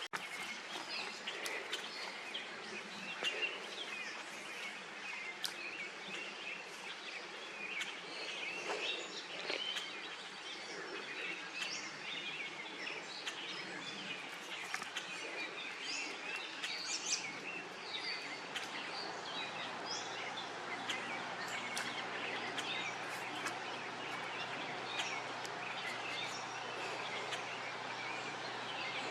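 Small birds chirping and calling again and again over a steady outdoor background hiss. A faint low hum joins about two-thirds of the way through.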